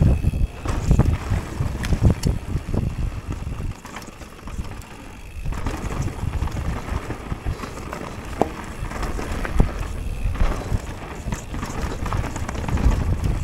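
Downhill mountain bike riding down a dirt trail, heard from a handlebar-mounted action camera: wind buffeting the microphone and tyres rumbling over the ground, with frequent clicks and rattles from the bike. It goes briefly quieter about four seconds in.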